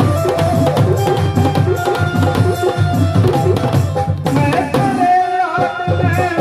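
Live devotional folk accompaniment: a dholak barrel drum playing a fast, steady rhythm under the held chords of a harmonium. A singer's voice comes in near the end.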